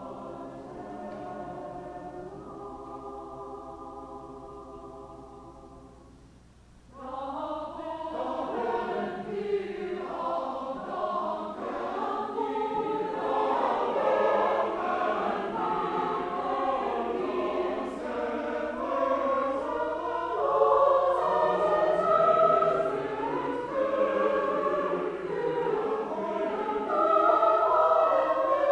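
Mixed choir of men and women singing: a long held chord fades away, and after a short break about seven seconds in, the choir comes back louder with moving parts.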